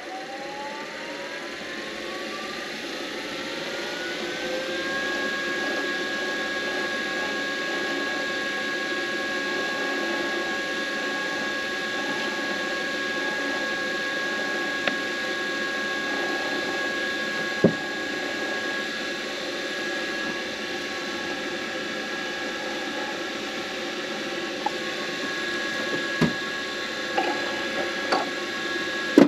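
Midi wood lathe spinning a pen blank for polishing. Its motor whine rises in pitch over the first five seconds as it speeds up, then holds steady, with a few light clicks and knocks in the second half.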